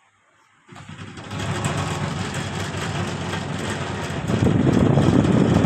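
Crompton air cooler switched on about a second in, its blower running with a loud, uneven mechanical noise that grows louder about four seconds in. The noise comes from the blower wheel's broken bushing.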